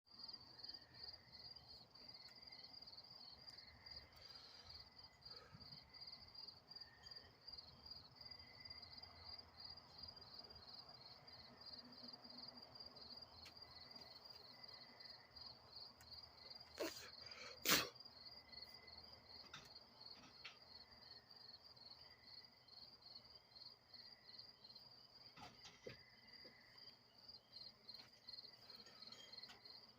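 Faint insects chirping in a steady, fast-pulsed high trill, with a softer intermittent trill beneath it. Two sharp clicks a little past halfway are the loudest sounds.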